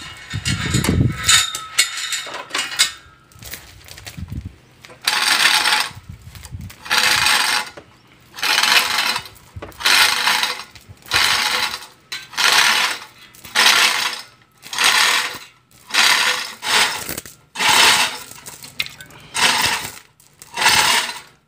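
Hand-operated chain hoist lowering a hanging car engine: the hoist's chain rattles through the block in a steady series of pulls, about one a second, starting a few seconds in.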